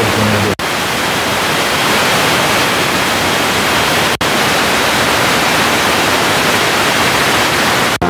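FM radio static: a steady hiss from a phone's FM tuner on empty frequencies between stations. It breaks off for an instant twice, about half a second in and about four seconds in, as the tuner steps to the next frequency.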